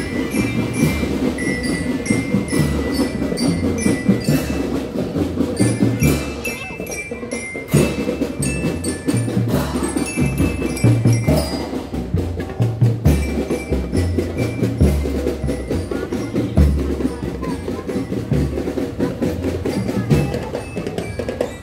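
Marching drum band playing: bass drums and snare drums keep a rhythm while bell lyres play a high melody over them.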